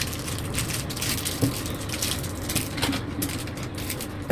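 Handling noise as a 3.5-inch hard drive is fitted into a metal PC cabinet's drive bay: scattered clicks and light rattles, with a sharper knock about a second and a half in.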